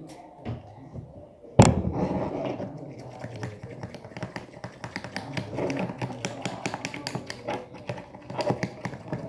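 A sharp knock about one and a half seconds in, then rapid, irregular clicking and tapping of a stirrer working liquid soap in a small container.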